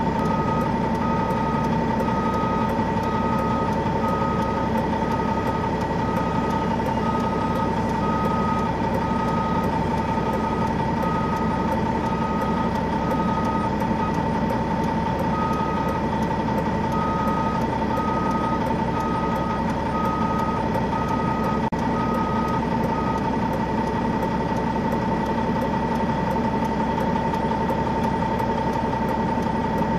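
Idling truck engine heard from inside the cab as a steady hum. Over it, a backup alarm beeps about once a second for the first twenty-odd seconds, with a short break around the middle.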